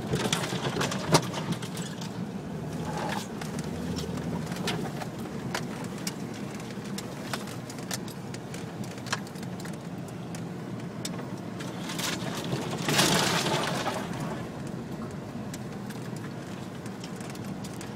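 An off-road vehicle's engine runs steadily as it crawls over a rough forest track, heard from inside the cabin. Frequent knocks and rattles come from the body jolting over bumps, and a louder rushing noise swells for about a second and a half near two-thirds of the way through.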